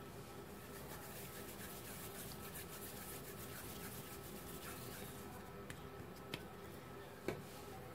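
Faint room tone with quiet rubbing of soft dough being shaped by hand, and two light taps near the end.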